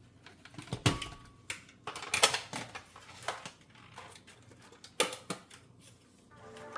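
Irregular sharp clicks and knocks, a dozen or so with short quiet gaps between them, as of small hard objects being handled and set down in a small room.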